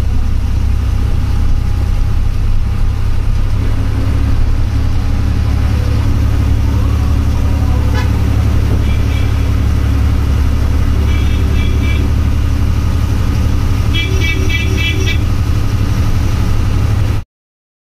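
Bus engine running with a steady low drone, heard from the driver's cabin. Three short bursts of rapid beeping horn toots come in the second half, the last the loudest. The sound cuts off suddenly near the end.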